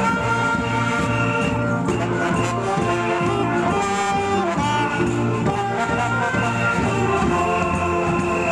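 Taiwanese funeral brass band playing a melody of held brass notes over a steady low drum beat.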